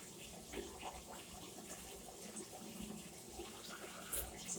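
Faint water sounds with small splashes and clicks as plastic vacuum cleaner parts are washed by hand with a wet flannel, with a short high hiss about four seconds in.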